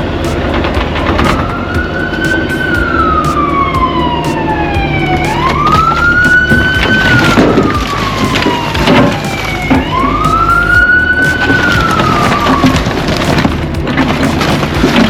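A siren wailing in three slow cycles, each rising quickly, holding, then falling away. Under it an engine runs steadily, with scattered clanks.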